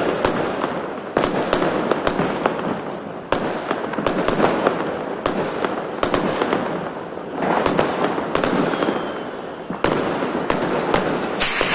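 Firecrackers and fireworks going off all around in quick succession: many sharp bangs over a continuous crackle, with a loud burst near the end.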